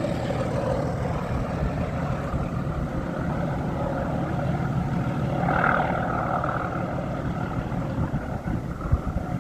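Class 31 diesel-electric locomotive's English Electric 12SVT V12 engine running steadily, with a brief louder swell in its note a little past the middle and a single sharp knock near the end.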